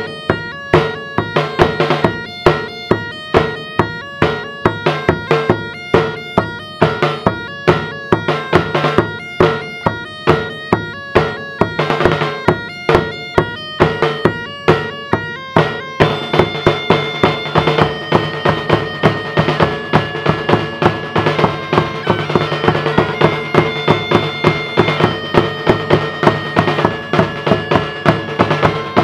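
A gaita de foles (bagpipe) plays a lively tune over its steady drone, with a snare drum and a bass drum beating a fast, regular rhythm. About halfway through, the piping moves from short clipped notes to longer held ones.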